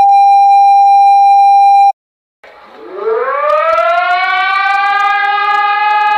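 Emergency alert alarm: a loud, steady, harsh tone for about two seconds that cuts off abruptly. After a short gap, a civil defense siren winds up, its pitch rising for about two seconds before it settles into a steady wail.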